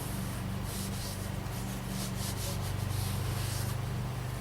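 A run of short hissing, rubbing strokes on the ground blind's fabric as the patch repair is worked on, over a steady low hum.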